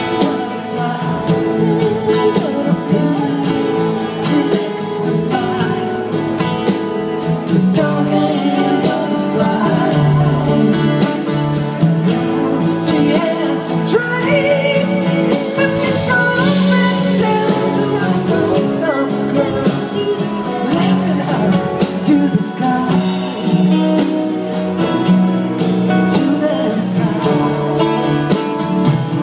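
Live rock band playing a long stretch with no sung words: acoustic and electric guitars over drums, heard from within the audience.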